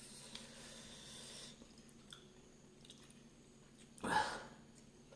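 A person chewing hot chillies: a hissing breath in the first second and a half, a few soft chewing clicks, then a short voiced gasp about four seconds in.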